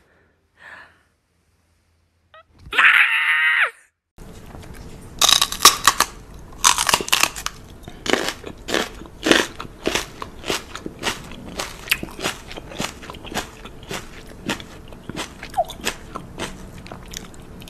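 A cat lets out one short, loud, wavering angry cry about three seconds in, the sudden switch from calm to fury. Then, after a cut, close-up crunching and chewing with irregular sharp clicks, one to three a second, runs on to the end.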